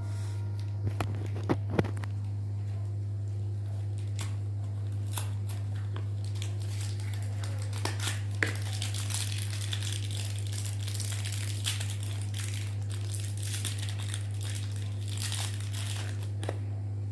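Ceiling-fan parts being handled while a second 6202 ball bearing is set in place: a few sharp metal clicks and taps, and a stretch of crinkling rustle from about 9 to 16 seconds. A steady low hum runs beneath throughout.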